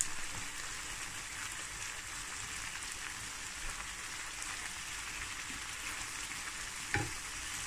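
Boiled chana dal sizzling in oil and tomato masala in a frying pan while it is stirred with a wooden spatula: a steady hiss, with a short knock near the end.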